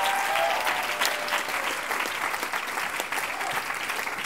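Audience applauding, a dense patter of hand claps that slowly fades.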